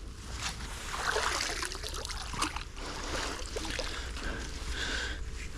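Water splashing and trickling, with a few light knocks.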